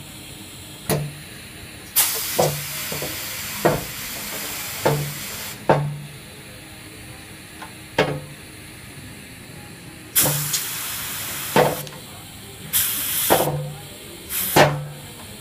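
Pneumatic air cylinders on a truck-mounted forklift transport frame being worked by a hand valve: repeated sharp clicks and clunks as the valve switches and the cylinders stroke. Between them come bursts of compressed-air hiss as air is fed in and let out, the longest lasting about three and a half seconds, then several shorter ones.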